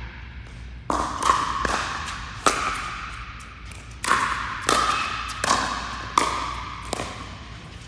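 Pickleball rally: about nine sharp pops of paddles striking the hollow plastic ball, irregularly spaced every half second to a second and a half, each ringing on in the echo of an indoor hall.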